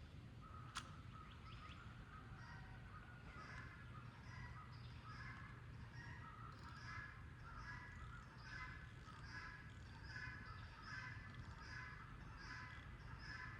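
A bird calling over and over, faintly, one short call about every three-quarters of a second from a few seconds in. A single sharp click about a second in.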